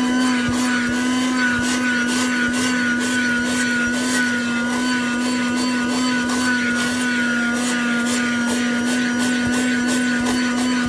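Sakura 12-volt 120-watt wet and dry car vacuum running steadily with a constant motor hum and whine, its wide nozzle sucking dirt off the car floor with frequent short crackles.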